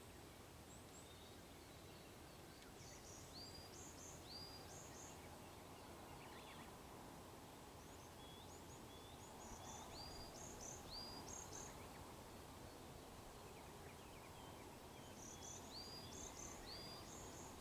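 Faint songbird song: three short phrases of quick high notes, each about two seconds long and some notes sweeping upward, spaced roughly six seconds apart, over a low steady outdoor background hum.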